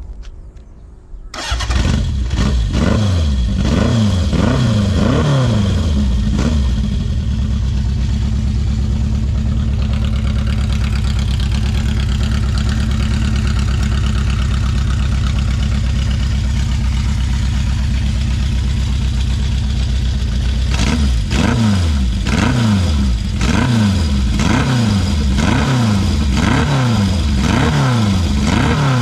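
Honda CB750 Four's air-cooled inline-four motorcycle engine starting up about a second in and blipped a few times. It then idles steadily, and from about 21 seconds in it is revved in a string of quick throttle blips, roughly one a second.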